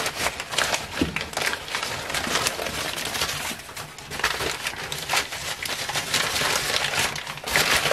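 Newspaper wrapping crinkling and rustling in irregular handfuls as it is pulled open from around a packed item.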